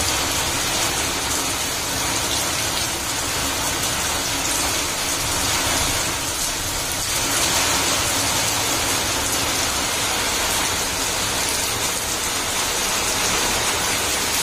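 Steady rain falling on a wet concrete terrace and splashing into its puddles.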